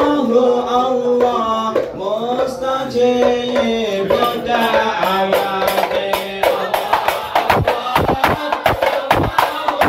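Ishari hadrah sholawat: men's voices singing, then terbang frame drums come in about halfway through and beat a fast, dense rhythm under the singing.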